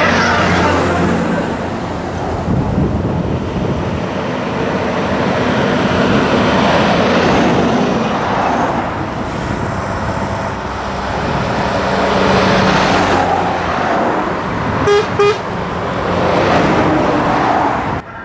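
Heavy Scania trucks driving past one after another. Each engine and its tyres swell loudly as the truck comes close and fade as it goes by. About 15 seconds in comes a truck air horn: two short blasts in quick succession.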